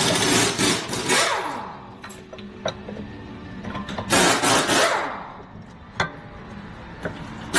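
Power tool, most likely an impact wrench, run in two bursts of about a second to a second and a half each, its pitch falling away as it winds down after each burst. Sharp metal clinks of tools come between the bursts.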